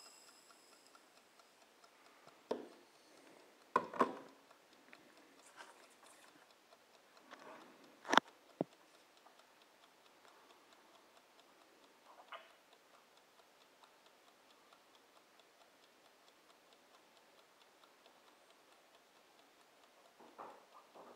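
Mechanical twin-knob Bodum kitchen timer ticking steadily and faintly as it counts down. A few scattered knocks and taps sound over it, the sharpest about eight seconds in.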